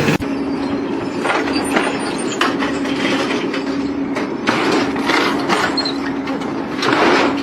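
Machinery running with a steady low hum, under irregular clanks and rattles, the loudest near the end.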